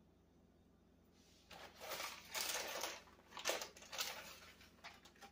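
Plastic zip-top bag of shredded cheese crinkling as it is handled, in several crackly bursts starting about a second in.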